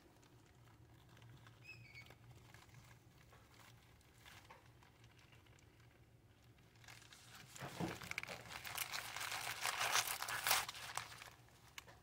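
Faint rustling of a sheer organza drawstring bag being untied and pulled open, then, about seven seconds in, a louder stretch of crinkling as a pile of small plastic zip-lock bead bags is tipped out and handled, lasting about four seconds.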